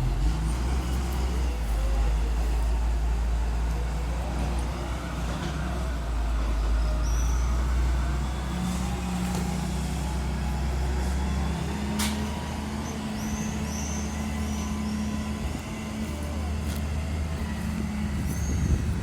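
Heavy diesel machinery engine running steadily with a low drone, as used in road repair work, with one sharp click about two-thirds of the way through.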